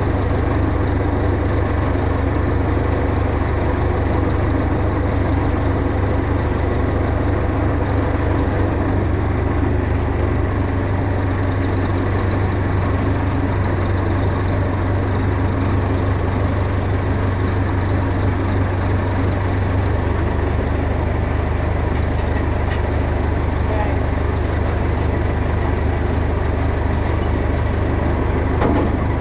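Farm tractor engine running steadily, a loud, constant low drone. Its low hum shifts slightly about twenty seconds in.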